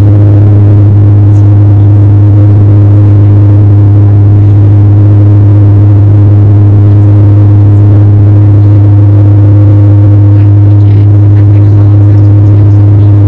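Turboprop airliner's propellers and engines droning, as heard inside the cabin: a loud, steady low hum of constant pitch with steady overtones above it.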